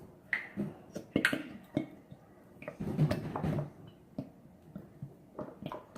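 Ketchup being emptied from its bottle into a mixing container: scattered knocks and clatter of the bottle against the container, denser around the middle.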